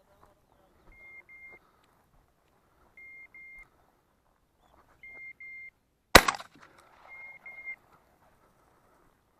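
A hunting dog's beeper collar giving double beeps about every two seconds. About six seconds in comes a single, much louder shotgun shot.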